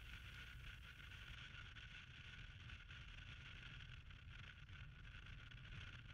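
Near silence: only a faint, steady hiss and low hum.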